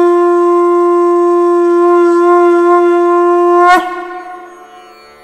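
Conch shell (shankh) blown in one long, steady, loud note. About three and a half seconds in, the note breaks off with a short downward dip in pitch, then fades away with a lingering echo.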